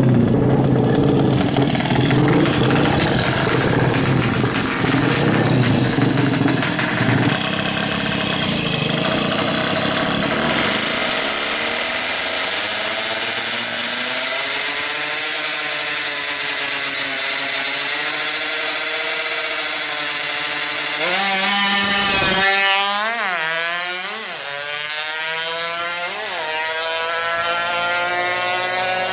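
Yamaha F1ZR two-stroke racing engine, tuned to 116cc, revving hard. Later it accelerates through the gears: the pitch sweeps up and drops back at each of several quick shifts, then climbs steadily again.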